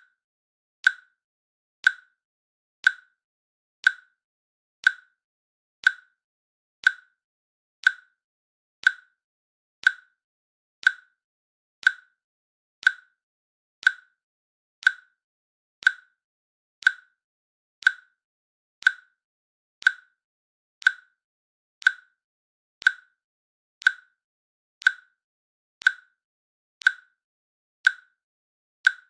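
Countdown timer's click sound effect, one short sharp click every second, evenly spaced, with silence between.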